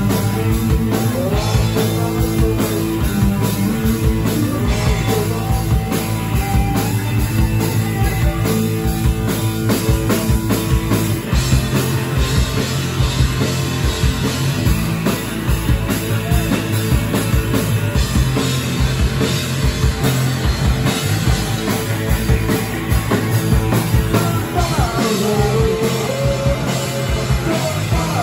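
Punk rock band playing live and loud: electric guitars, drum kit and keyboards in an instrumental stretch, with voices shouting the vocal line back in near the end.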